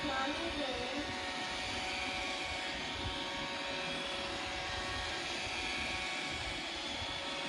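iRobot Roomba 560 robot vacuum running: a steady whir from its vacuum motor and brushes, with a constant motor whine over it.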